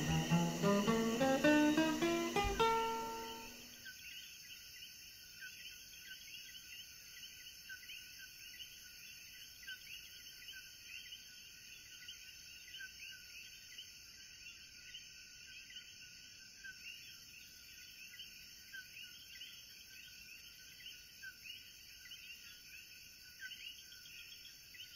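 Acoustic guitar music ends about three seconds in, leaving a faint, steady night chorus of many small overlapping chirping calls.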